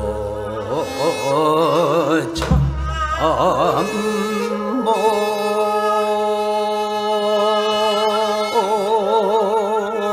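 Korean sijo singing: a solo voice holding long notes with wide, slow vibrato over a steady low instrumental tone, with one low stroke about two and a half seconds in.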